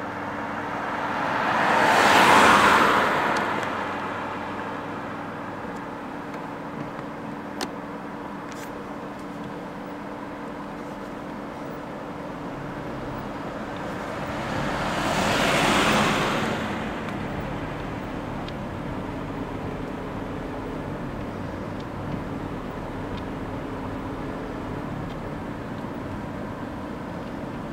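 Two cars passing by, each swelling and fading over a few seconds: the first, louder, about two seconds in, the second around sixteen seconds in, over a steady outdoor hum.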